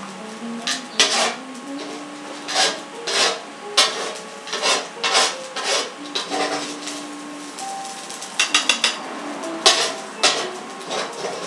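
Chopsticks scraping and clicking against a bowl of food in short, irregular strokes, with a quick run of several about eight seconds in.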